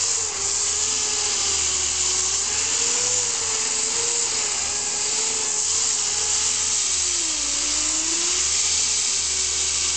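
Power grinder running steadily and grinding through thick body filler on a car body panel, a dense hiss over a motor whine that sags and recovers as the load changes, dipping lowest about three quarters of the way in.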